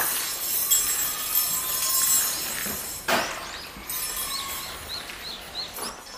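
Many stainless steel chopsticks hanging on threads jangling and clinking against one another as they swing, with a sharper clatter about three seconds in, then dying away.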